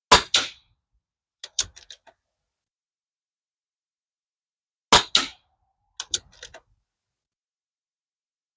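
Two shots from a Pinty P-Rifle .22 PCP air rifle, one at the start and one about five seconds in, each a sharp report with a second short crack right after it. About a second and a half after each shot, a quick run of small mechanical clicks as the action is cycled to chamber the next pellet.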